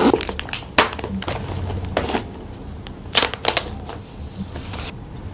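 Makeup products being handled: irregular crisp clicks and crunching crackles.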